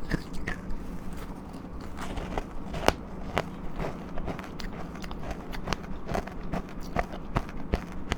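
Close-miked biting and chewing of powdery ice dusted with matcha powder: a dense, irregular run of soft crunches and crackles, with the sharpest crunch about three seconds in.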